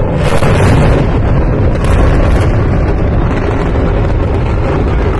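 Controlled demolition of twin high-rise towers: explosive charges going off in a rapid crackling series and the buildings collapsing. It comes in suddenly as a loud, sustained rumble, with the sharpest crackles near the start and again about two seconds in.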